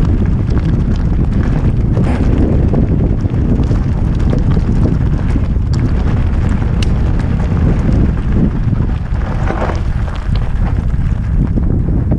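Wind buffeting the helmet camera's microphone during a fast mountain-bike descent, over the rough rumble of the bike on a stony dirt track, with scattered clicks and rattles.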